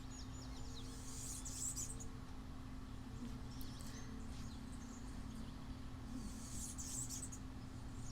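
Small birds chirping in short high bursts now and then, over a faint steady low hum.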